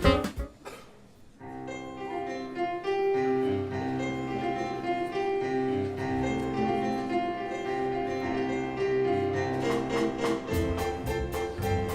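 Piano playing a slow introduction of sustained chords, which turns to evenly repeated chords near the end.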